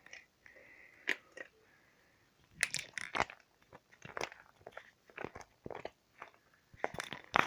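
Slime being squeezed and pulled apart by hand, giving irregular sticky crackles and pops.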